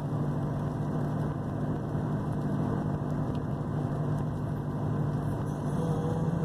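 Steady engine hum and road noise inside the cabin of a Mercedes-Benz C300 while it is being driven.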